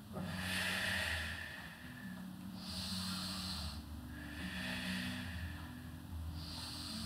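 A woman's heavy, audible breathing into the microphone during a Pilates leg lift: about four long breaths of a second or so each.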